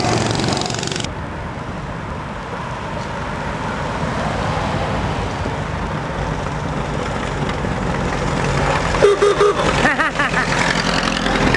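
Miniature parade cars driving past over steady street noise; about nine seconds in, a horn sounds three quick toots.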